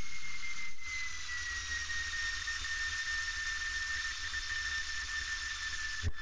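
Steady cockpit noise of a single-engine light aircraft in flight, with a thin high whistle that slides slowly lower in pitch about a second in and then holds.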